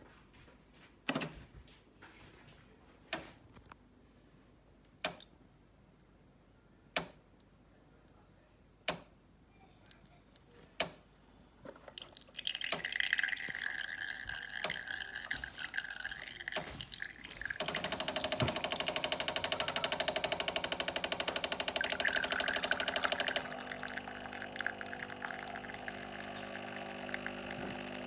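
Bosch Tassimo pod machine running a milk capsule: a series of sharp clicks about every two seconds, then its pump starts partway through with a steady hiss and whine, turning into a louder fast, even pulsing buzz and then a quieter hum as frothed milk pours into the glass.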